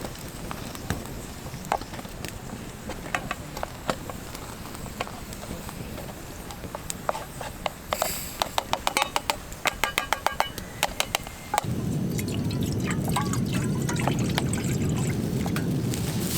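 Liquid sounds and light clicks and clinks, with a quick run of sharp clinks about eight seconds in. About twelve seconds in, a steady low rushing noise starts suddenly and keeps going.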